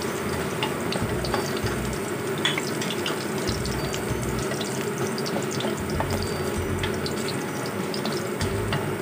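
Hot oil sizzling steadily in a wok, with many small irregular pops and crackles, as small chopped pieces fry and are stirred with a spatula.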